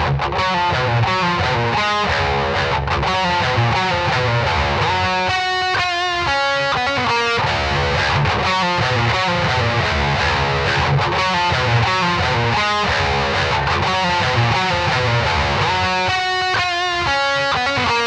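Electric guitar playing a heavy metal riff through the Wrathprayer one-knob distortion pedal, a thick, gritty distortion with an HM-2-style tone. Two held chords ring out clearly, about five seconds in and again near the end.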